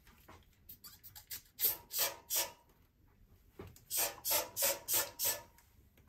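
Trigger spray bottle of degreaser squirting into a plastic air fryer basket: three quick sprays, a pause, then five more.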